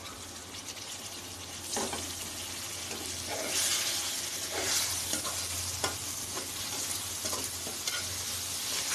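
Masala of browned onions, spices and tomatoes sizzling in oil in a pot while a spoon stirs it, scraping and knocking against the pan about once a second. The sizzle is louder for a second or two near the middle.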